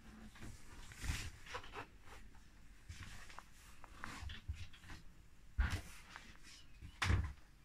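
Scattered soft knocks, rustles and shuffles of someone moving about a small boat cabin while handling the camera, with two louder low thumps, one past the middle and one near the end.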